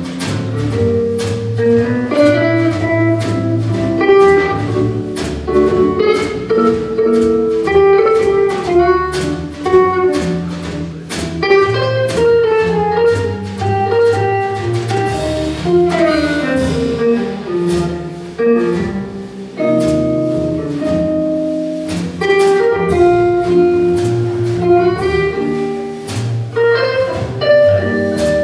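Small jazz group playing live: a jazz guitar carries a single-note melodic line over double bass and a drum kit keeping time with steady cymbal strokes.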